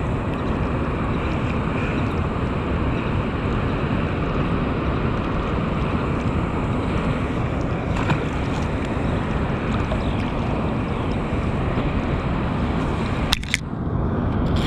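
Steady rush of fast-flowing water below a concrete dam outlet, with wind on the microphone. A sharp click near the end.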